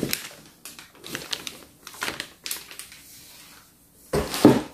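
Toy packaging being handled: scattered light taps and rustles of plastic wrap and cardboard, then a louder bump and scrape about four seconds in as a hand reaches into the cardboard box.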